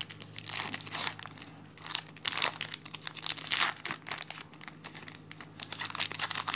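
Foil wrapper of a Yu-Gi-Oh booster pack being torn open and peeled back by hand, crinkling in repeated bursts, over a faint low steady hum.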